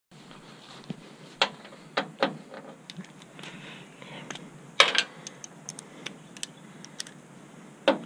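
Scattered clicks and knocks of hand tools, screws and plastic grille parts being handled, loudest about five seconds in, with lighter ticks after it.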